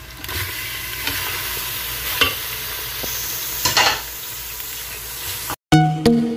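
Raw mutton pieces frying in hot oil and onions in an aluminium pressure cooker: a steady sizzle as the meat is stirred with a wooden spoon, with two sharper knocks of the spoon against the pot. Near the end the sizzle cuts off abruptly and background music begins.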